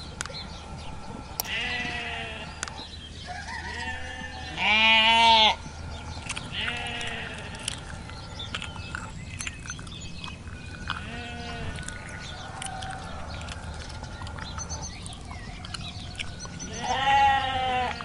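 Sheep bleating: about six separate bleats, some high and thin, others deeper. The loudest come around five seconds in and near the end.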